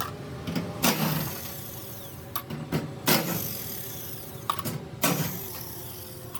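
Carrier air handling unit blower running with a steady hum and repeated sharp knocks at uneven intervals, about one to two a second: the noise of a blower that is out of balance.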